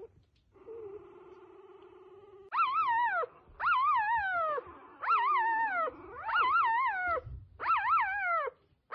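Newborn F1B Goldendoodle puppy crying: a low, steady whine at first, then from about two and a half seconds in, five loud wavering cries, each falling away at its end.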